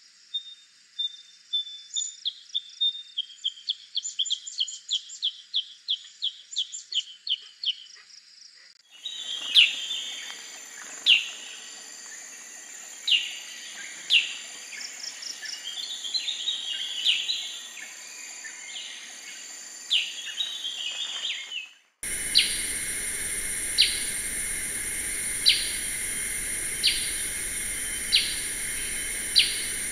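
Black-headed bulbul calling, in three spliced recordings. First comes a quick run of chirping notes. About a third of the way in, sharp down-slurred notes follow a second or two apart over hiss, and about two-thirds through a cut brings the same sharp notes repeated roughly every second and a half over a steady high buzz.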